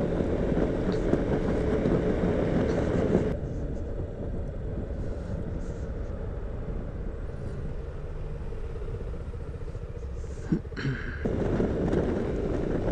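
Wind rush and engine noise from a Yamaha XMAX 300 scooter being ridden. The noise drops sharply about three seconds in as the scooter slows in traffic, with a couple of short knocks later on. It rises sharply again near the end as the scooter speeds up.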